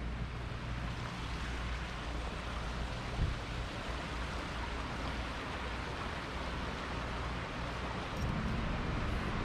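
Steady rushing of a shallow, rocky stream, with a low rumble underneath and one brief knock a little over three seconds in.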